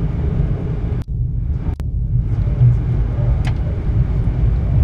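Sunlander passenger train running, a steady low rumble heard from inside the carriage, with a few sharp clicks.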